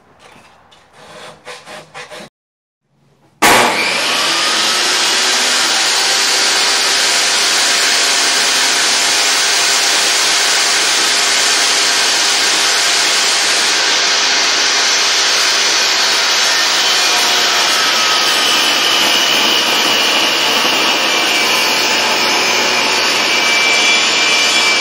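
A few quiet rubbing strokes of wet sanding on a steel axe blade, then from about three seconds in a Craftsman table saw running steadily as a round wooden axe handle is fed along the fence into the blade.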